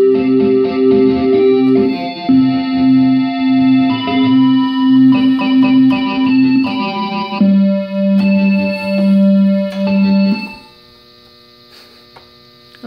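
Casio electronic keyboard played with both hands: long held low notes, first one pitch and then a lower one, under changing higher notes and chords. The playing stops about ten and a half seconds in, leaving a faint steady hum.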